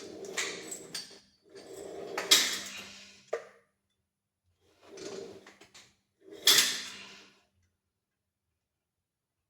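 Four sliding, scraping strokes, each about a second long, with a low hum running through them, the kind of rub a drawer or slider makes, then quiet for the last two seconds.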